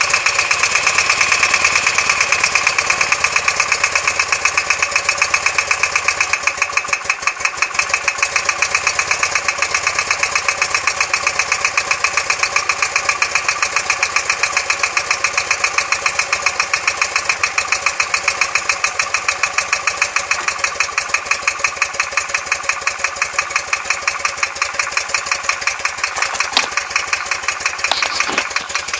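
BMW R100S air-cooled flat-twin engine idling cold just after starting, with a fast, even ticking knock through the running. The owner hears this knock from the left side only when the engine is cold; it goes away once warm.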